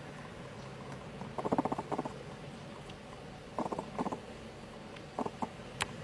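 An animal chattering in short bursts of rapid clicks, three times, with a couple of sharp ticks near the end.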